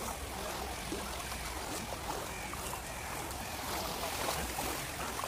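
Knee-deep floodwater sloshing and swirling around the legs of people wading through it, a steady watery noise.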